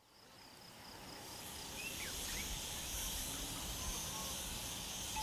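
Dusk wildlife ambience fading in from silence: a steady high chorus of insects trilling, with a few short chirps about two seconds in over a low rumble.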